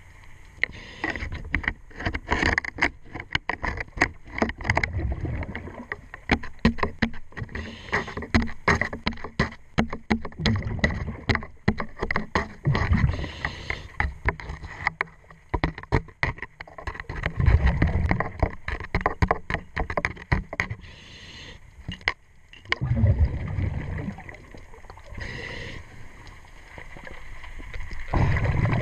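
Underwater sound of a diver breathing from a regulator: a low bubbling rumble of exhaled air every four or five seconds. Between the breaths come rapid clicks and knocks from work on the propeller and shaft zinc, dense for the first half and sparser after.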